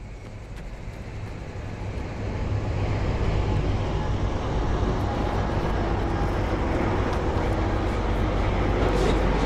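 Rumble of a passing train, swelling over the first three seconds and then holding steady.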